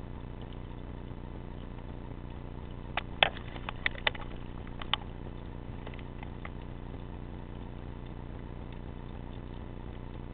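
Underwater ambience picked up through a camera housing: a steady low hum, broken about three seconds in by a short cluster of sharp clicks and knocks lasting about two seconds.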